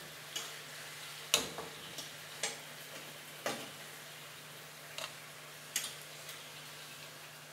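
Metal tongs clicking against a non-stick frying pan and the rim of a pot as fried chicken pieces are moved across: about eight sharp, irregular clicks, the loudest about a second and a half in, over faint sizzling from the pot.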